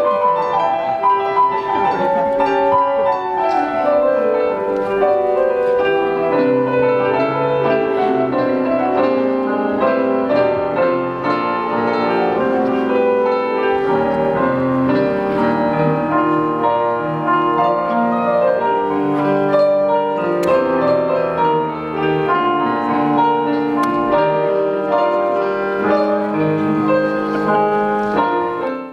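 Piano music playing, a flowing melody with many notes ringing together.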